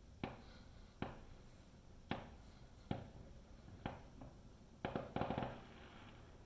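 Distant aerial fireworks going off: a run of single sharp bangs about a second apart, then a quick cluster of crackling pops near the end.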